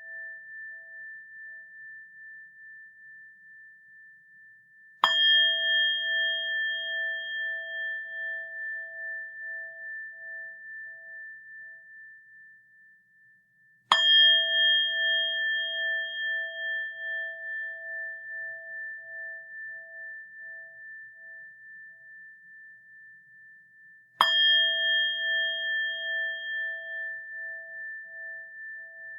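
Buddhist rin bell struck three times, about nine to ten seconds apart, each strike ringing on in a long fading tone with a slow, even waver in loudness.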